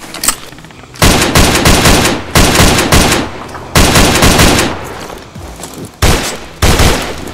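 Automatic rifle fire, a dubbed gunfire sound effect: five bursts of rapid shots, each about a second long, the first about a second in. A single short crack comes just before them.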